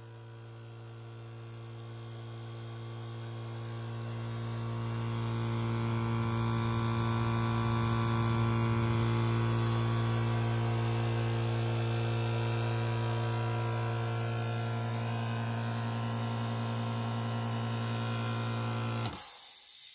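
VEVOR oil-free twin-cylinder air compressor running: a steady low hum that grows louder over the first several seconds, holds steady, and stops abruptly near the end.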